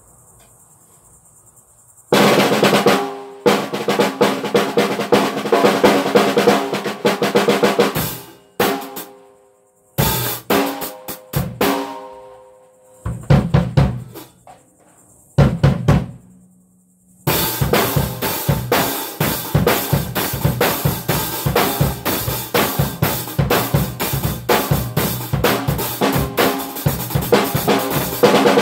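Drum kit being played: snare, bass drum and cymbals. It is quiet for about two seconds, then plays several fills broken by short pauses, and a little past halfway it settles into a steady, fast beat.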